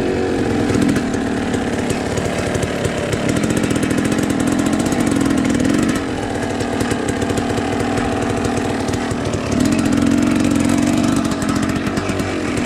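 Dirt bike engine running as the bike is ridden, its pitch rising and falling with the throttle, louder for a few seconds about three seconds in and again near ten seconds.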